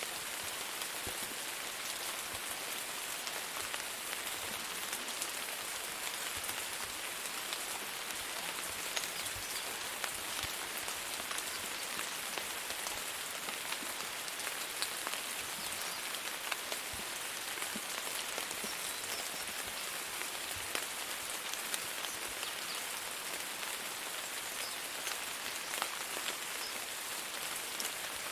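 Steady rain falling: an even hiss dotted with many small, sharp drop ticks, holding at one level throughout.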